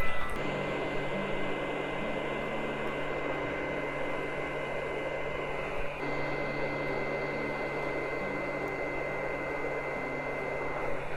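Steady rush of blown air with a thin high whine from electronics-repair bench equipment, such as a hot air rework station's blower, with a short knock at the very start.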